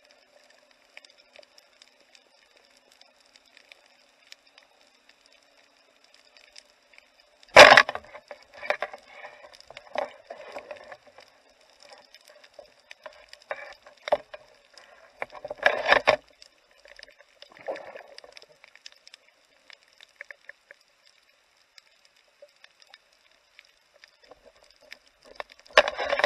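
Underwater knocks and clatter of a spearfisher's spear and gear against the reef. One sharp, loud knock comes about seven and a half seconds in and another heavy knock around sixteen seconds, with scattered clicks and crackles between, over a faint steady hum.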